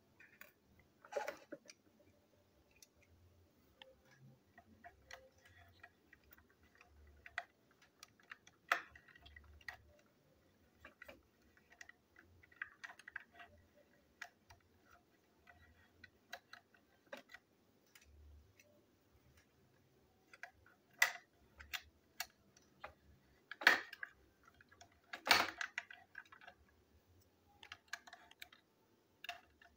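Small plastic clicks and taps at irregular intervals from a plastic toy train engine and its coupling parts being handled and fitted by hand, with a few sharper, louder clicks in the last third.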